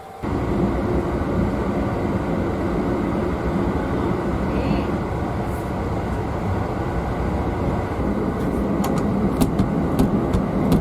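Overnight sleeper train running on the rails: a steady, dense rumble that starts abruptly, with a few sharp clicks near the end.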